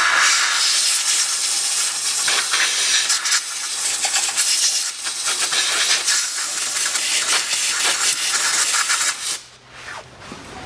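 Aerosol carburetor cleaner spraying through its straw nozzle onto the front differential housing in a long hiss with a few brief dips, stopping about nine seconds in; it is washing leaked gear oil off the housing.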